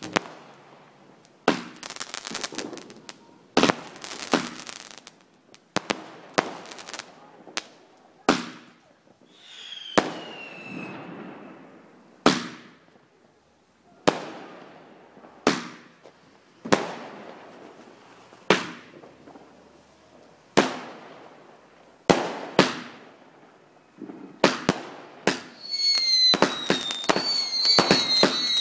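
Consumer firework cakes firing: sharp bangs of launches and shell bursts every second or two, each trailing off in an echo. About ten seconds in, one whistle falls in pitch, and near the end the shots come in a quick volley with several whistles.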